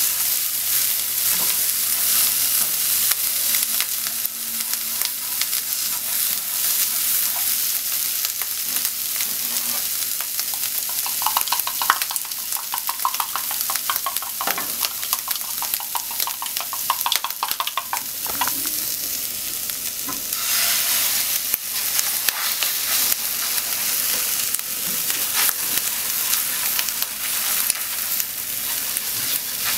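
Sliced ham sizzling in a nonstick frying pan while wooden chopsticks stir it, with a quick run of light taps in the middle. About two-thirds through, beaten egg goes into the pan with a sudden louder sizzle.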